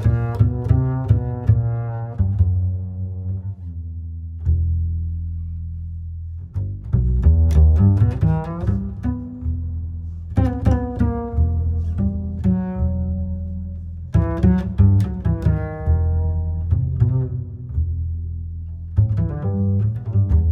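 Background music led by low plucked and bowed strings, in phrases with short lulls between them.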